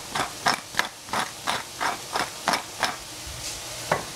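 Spatula clacking against a frying pan in quick stir-frying strokes, about three a second, over the sizzle of vegetables frying in oil. The strokes stop about three seconds in, with one more near the end.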